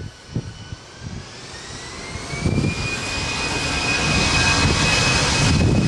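Jet airliner engines spooling up: a whine rising in pitch over about two seconds, then holding steady, while the rumble grows louder.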